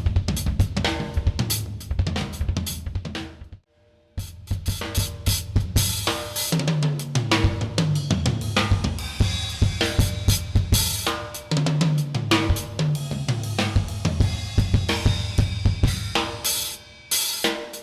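Drum kit played solo on heads more than four years old: snare, bass drum, hi-hat and cymbal crashes in a busy groove. It breaks off for a moment about three and a half seconds in, then comes back in, with fills that step down in pitch across the drums twice.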